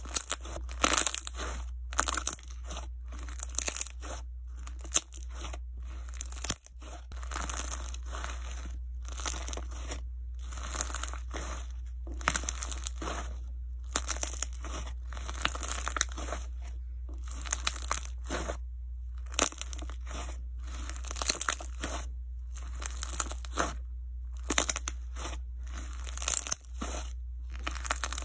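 Jelly slime with melamine-sponge chunks being squeezed and kneaded by hand. The sponge pieces crunch and crackle in irregular bursts, with short pauses between squeezes.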